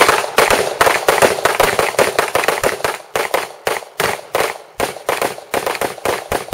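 Rapid gunfire from several shooters firing at once: a dense string of overlapping shots, several a second, that thins out toward the end as the volley slows.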